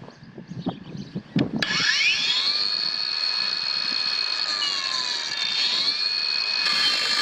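Kobalt 24-volt brushless cordless angle grinder with a grinding wheel, switched on about a second and a half in: its motor spins up with a rising whine and settles into a steady high whine. The pitch sags briefly and recovers partway through, and a harsher hiss joins near the end. A few handling knocks come before it starts.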